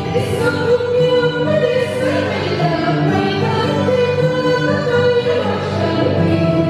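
Andean harp being plucked, with a woman's voice singing long held notes over it.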